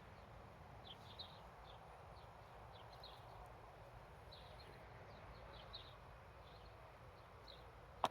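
Faint small-bird chirping: short high chirps repeated several times a second over quiet outdoor background, with one sharp knock at the very end.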